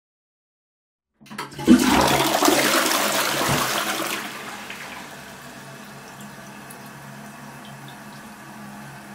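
Toilet flushed: a sudden loud rush of water about a second in, strongest for the first three seconds, then easing into a steady quieter hiss of the tank refilling.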